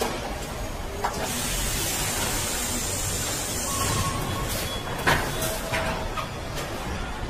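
Car assembly line factory noise. A long hiss of released air runs for about three seconds from a second in. Sharp metal clanks come about a second in and twice more later, the loudest about five seconds in, with a few short machine beeps among them.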